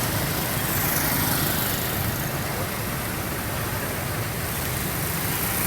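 Motor vehicle running steadily, a low engine rumble with even road and wind noise over it.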